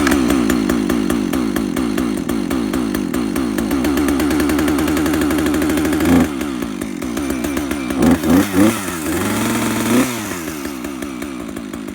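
Husqvarna 562 two-stroke chainsaw running just after a cold start, holding a steady fast idle. The pitch shifts about six seconds in, and the throttle is blipped in short revs a few times between about eight and ten seconds.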